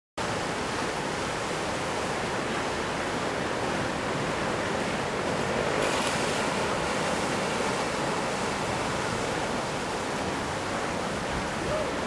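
Steady wash of surf breaking on a beach, mixed with wind, the sea still rough after a typhoon.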